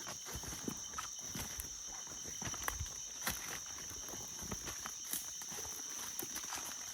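Footsteps walking through farm bush: irregular crunches and knocks. A steady high-pitched insect drone runs underneath.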